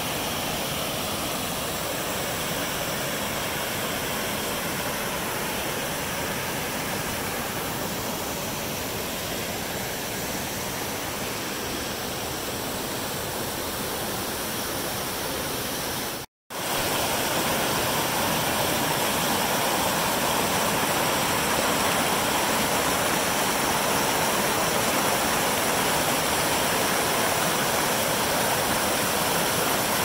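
Rain-swollen creek rushing over rock cascades and rapids: a steady wash of white water. It cuts out for a moment about sixteen seconds in and comes back slightly louder.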